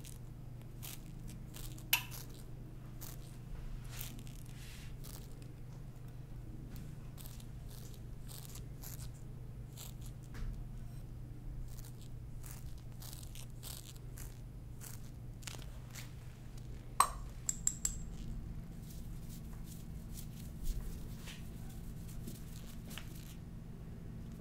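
Scattered small clicks and taps of a paintbrush and small glass jar being handled over a steady low hum; the two loudest taps, about two seconds in and near seventeen seconds, ring briefly.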